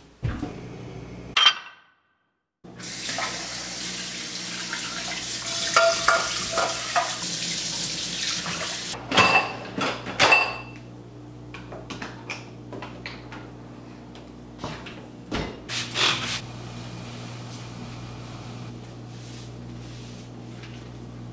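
Water running from a tap for several seconds, then ceramic bowls clinking against each other as a dishwasher rack is unloaded, followed by lighter scattered knocks and clatter over a low steady hum.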